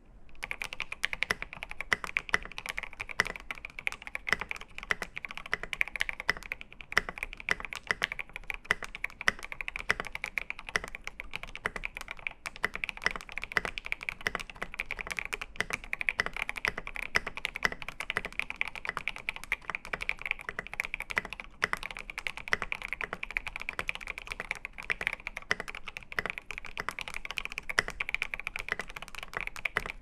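Continuous fast typing on a clear polycarbonate Obliterated75 mechanical keyboard with an FR4 plate, lubed Alpaca linear switches with TX films, and SA profile keycaps: a dense, unbroken stream of keystrokes.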